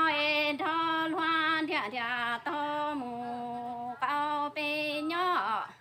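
A woman singing Hmong kwv txhiaj, unaccompanied chanted song poetry, in long held notes. The pitch steps lower in the middle, comes back up, and the last note falls away in a wavering glide just before the end.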